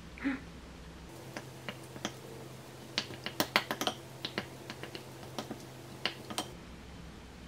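Wooden spoon clicking and tapping against a glass mixing bowl as rice, bulgogi and sesame oil are stirred together: irregular sharp clicks, thickest about three to four seconds in. A brief knock comes just after the start.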